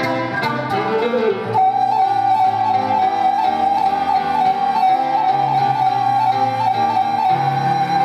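Flute and Petrof grand piano in a live duet: the flute takes up one long, steady held note about one and a half seconds in, while the piano plays changing chords and low bass notes underneath.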